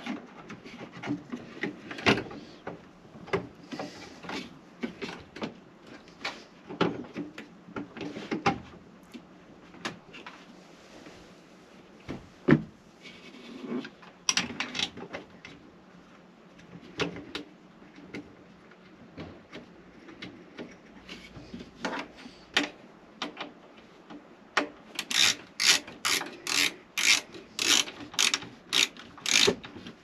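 Replacement plastic combustion air fan unit being handled and pressed onto a Truma Combi boiler, with scattered knocks and rubbing. Near the end comes a fast, even run of clicks, about three a second, from a ratcheting screwdriver turning in the T20 Torx fixing screws.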